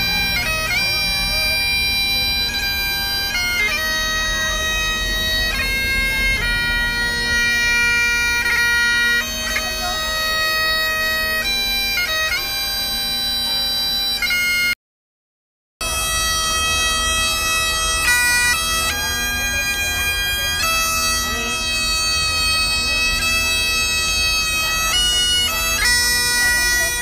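Great Highland bagpipes playing a tune: quick-changing melody notes over a steady drone. The sound drops out completely for about a second midway, then the pipes play on.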